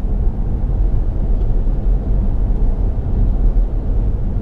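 Steady low rumble of tyre and road noise inside the cabin of an electric Tesla Model 3 moving at road speed, with no engine note.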